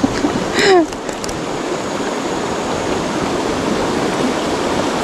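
Shallow river running over rocks, a steady rush of water. A little under a second in, a brief sound that falls in pitch stands out above it.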